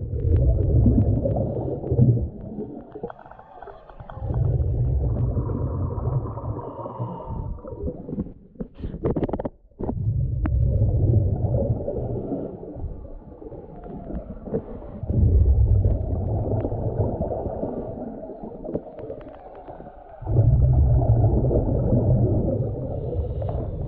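A diver breathing underwater through a US Divers DA Aquamaster double-hose regulator: five bursts of rumbling exhaust bubbles, one about every five seconds, with quieter breaths between. A few sharp clicks come near the middle.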